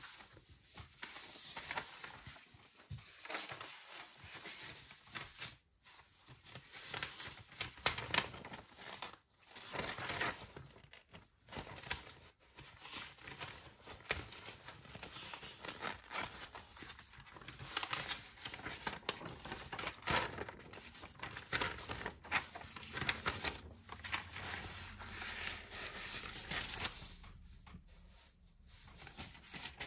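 Paper rustling and crinkling as study papers are handled, a continuous run of irregular scratchy strokes that eases off briefly near the end.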